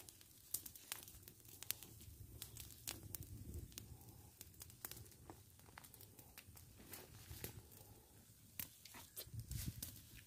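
Irregular sharp crackles and pops from a small wood fire and hot oil frying in a pan over it, over a faint steady hiss.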